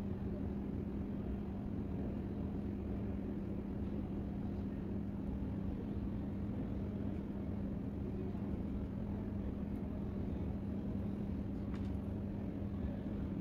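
Steady low background rumble with a constant low hum running under it, unchanging throughout.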